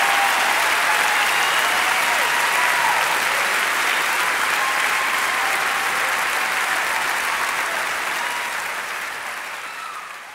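Ringside audience applauding, the clapping fading away over the last two seconds or so.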